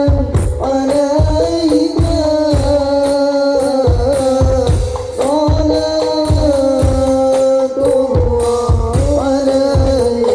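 Islamic devotional singing (sholawat) with frame drums: a sustained, wavering melodic vocal line over repeated low drum beats.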